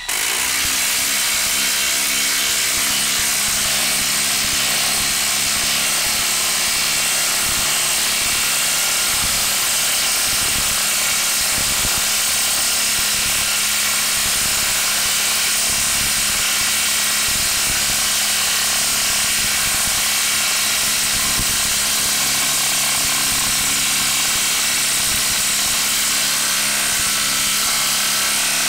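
Bosch brushless impact driver hammering without a break as it drives a 4-inch hex-head screw through a socket into a log round. It is struggling under the load.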